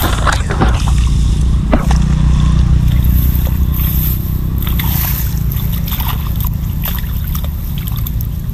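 Water sloshing and splashing as a person wades in a flooded ditch and hauls up a fish trap, with some trickling and dripping. A steady low rumble runs underneath.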